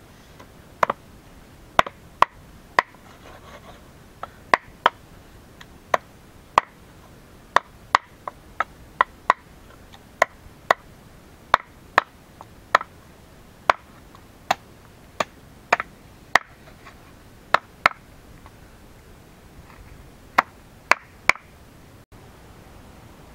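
A large knife chopping on a round wooden board: a long series of sharp chops, about one or two a second, each with a short ring.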